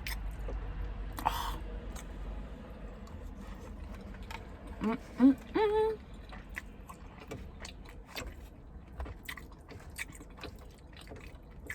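Close-up chewing of chicken Alfredo pasta: small wet mouth clicks and smacks throughout, with a louder smack about a second in and a short hummed voice sound about five seconds in.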